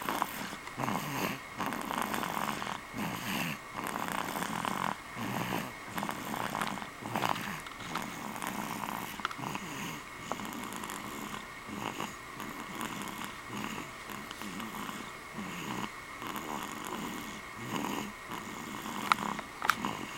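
Two-month-old baby snoring loudly in sleep, a rough, rattling snore on each breath, about one a second. A few sharp clicks near the end.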